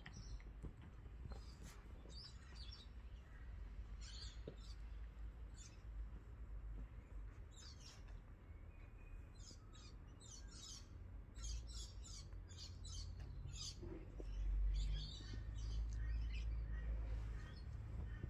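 Small birds chirping in quick, repeated high calls, thickest about halfway through, over a steady low rumble that swells briefly near the end.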